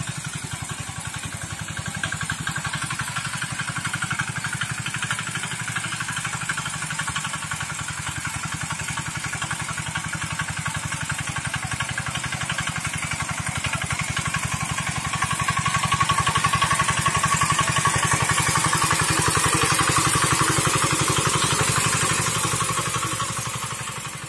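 Field Marshal 5 hp single-cylinder diesel engine on a homemade walk-behind mini tractor, running steadily under load as it works the field with an even, fast chugging beat. It gets louder past the middle and fades out near the end.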